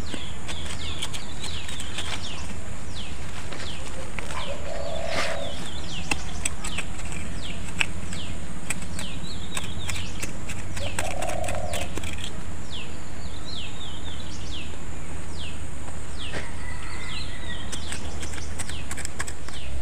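Birds calling with quick, repeated downward-sweeping chirps, over a steady low rumble, with scattered clicks and scrapes of a small tool digging into soil.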